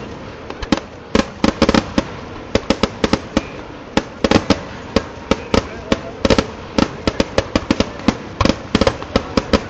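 Kerala temple fireworks (vedikettu) going off in a rapid, irregular string of sharp bangs, several a second, some in quick clusters.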